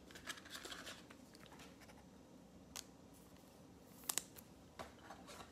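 Faint handling noises: light rustling in the first second, then a few small clicks, including a sharp double click about four seconds in.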